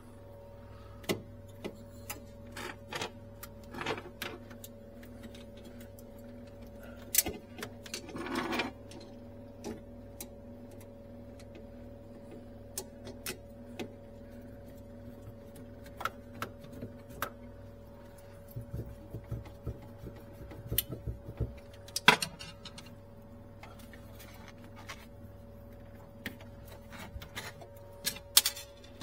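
Scattered clicks, taps and knocks of hands handling and fitting a refrigerator's finned evaporator coil, with a sharp knock about 7 seconds in, another about 22 seconds in and another near the end. A steady low hum runs underneath.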